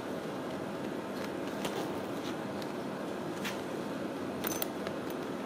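A Ragdoll kitten's paws scratching and tapping lightly at a fabric bag: a few faint, short scrapes over a steady room hiss.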